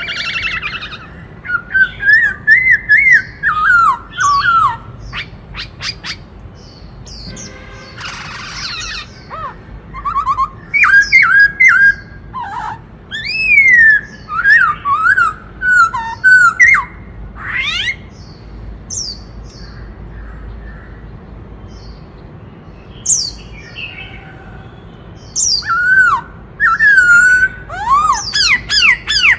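Black-throated laughingthrush singing loud, clear whistled phrases that sweep up and down in pitch, in bursts separated by short pauses, with a quieter lull of a few seconds past the middle.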